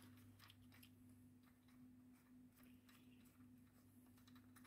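Near silence: a faint steady low hum, with a few faint light clicks from a gloved hand handling the spark plug caps on a snowmobile engine.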